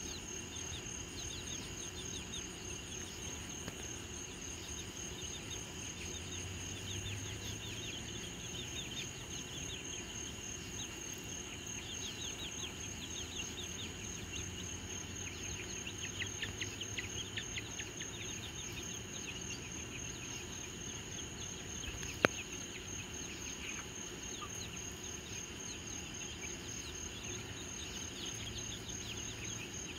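Night insect chorus of crickets chirping steadily, with a flurry of quicker, higher chirps in the middle. A single sharp click sounds about two-thirds of the way through.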